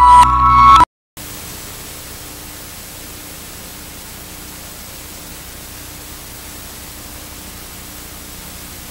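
A loud music ending cuts off abruptly about a second in. Then comes steady TV static hiss, like an analog television on a dead channel, with a faint low hum under it.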